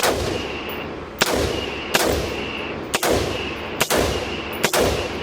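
Custom AR-15 fitted with a Barrett .50 cal muzzle brake firing six shots in steady semi-automatic succession, about one a second, each with a long echo trailing after it.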